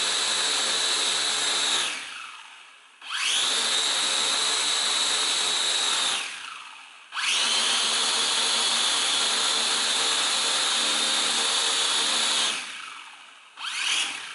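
Small quadcopter's four motors and propellers whining at full throttle while the craft sits on the table, in three long runs with a spool-down and spool-up between each, then a short throttle blip near the end.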